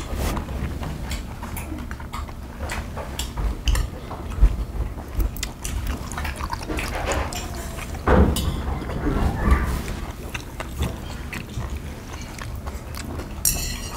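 Close-miked eating: people chewing food, with scattered sharp clicks of metal chopsticks against brass bowls and dishes.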